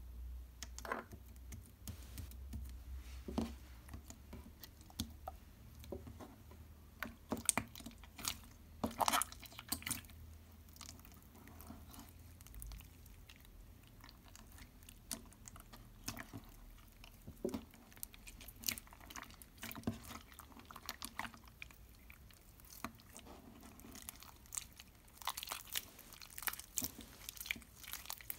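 Hands squishing and kneading runny water slime together with a lump of Play-Doh, making irregular wet, sticky clicks and pops that come faster near the end. The clay is not mixing into the slime.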